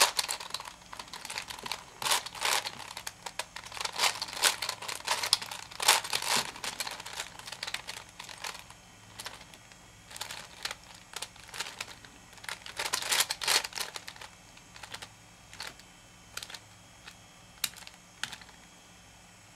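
Layers of a V-Cube 7 (7x7x7 puzzle cube) being turned by hand: quick runs of plastic clicking, busiest in the first seven seconds and again around thirteen seconds, then sparser single clicks.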